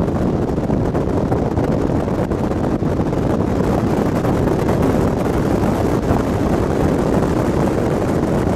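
Steady engine and tyre noise inside a 4x4 jeep driving across a salt flat, with wind noise on the microphone.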